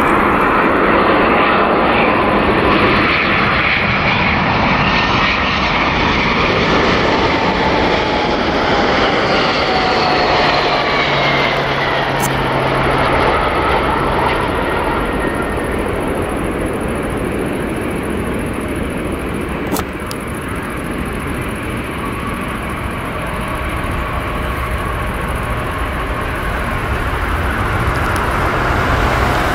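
McDonnell Douglas MD-11 freighter's three jet engines passing close on a landing approach, a steady roar with whines that fall in pitch as it goes by. The sound carries on as the aircraft rolls out along the runway.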